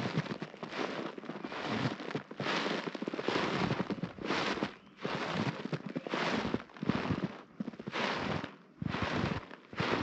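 Footsteps crunching through snow at a steady walking pace, about two crackly steps a second.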